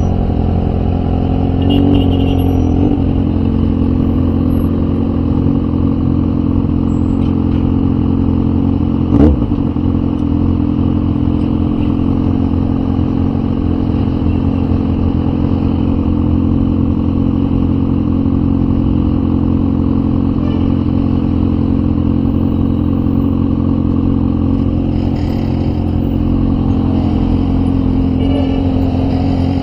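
Motorcycle engine idling steadily amid close street traffic, with one sharp knock about nine seconds in.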